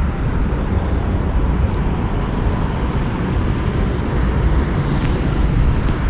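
Steady low outdoor rumble with a hiss above it, no distinct events.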